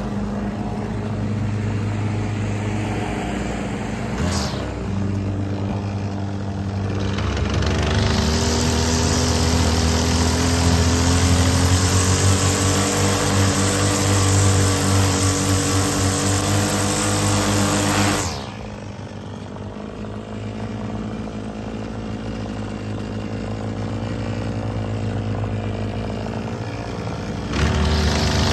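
Gas string trimmer engine running steadily, then throttled up for about ten seconds with the spinning line adding a high hiss, eased back to idle about two-thirds of the way in, and opened up again at the very end. A brief click comes about four seconds in.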